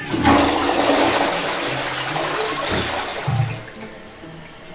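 A toilet flushing: a loud rush of water for about three seconds that then trails off, with background music underneath.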